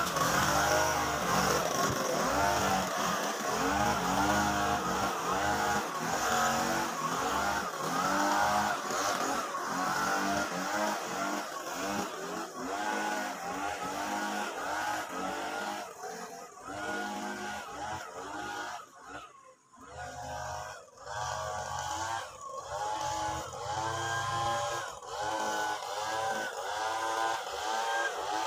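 Mitsubishi brush cutter with a nylon trimmer-line head, its small petrol engine revving up and down over and over as the throttle is worked. It grows somewhat fainter past the middle as the machine moves away.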